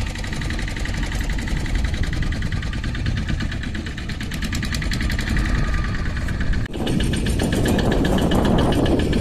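Small long-shaft outboard boat engine running steadily with a rapid, even firing beat. About two-thirds through, the sound breaks off for an instant and returns louder, with a rushing noise mixed in.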